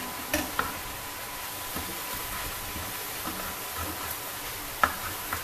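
Chicken pieces frying with a steady light sizzle in a stainless steel pan as a spatula stirs and turns them. A few sharp clicks of the spatula against the pan, two about half a second in and the loudest just before the end.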